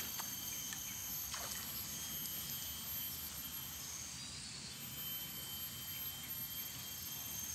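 Pond-side ambience: insects calling in thin, steady high tones that come and go, over a low steady rumble, with two faint clicks in the first second and a half.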